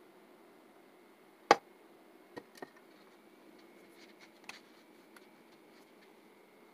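Butter spitting and popping as it melts in a hot frying pan: scattered sharp pops, one much louder about one and a half seconds in, over a faint steady hum.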